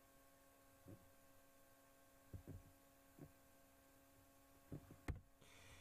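Near silence: a steady low electrical hum with a few soft, dull thumps, and a sharper click near the end.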